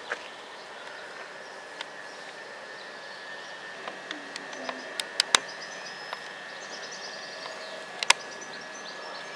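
Open-air station background: a steady faint high whine over a noise haze, with faint bird chirps and a few sharp clicks about five and eight seconds in.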